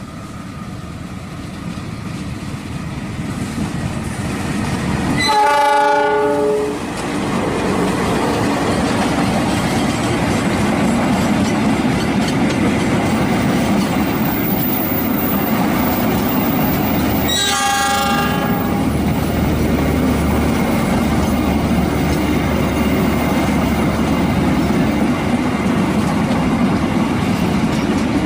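CC206 diesel locomotive sounding its horn, the semboyan 35 signal of Indonesian railways, as the train closes in: a loud chord about five seconds in lasting over a second, and a shorter one about seventeen seconds in. Around the blasts the train runs past with a steady loud rumble of engine and wheels on the rails.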